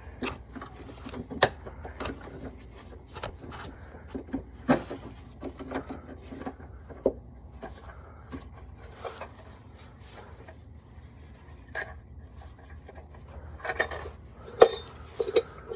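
Irregular metallic clicks and clinks of 4L60E servo parts being pressed by hand into the transmission against their spring, with a sharper knock near the end.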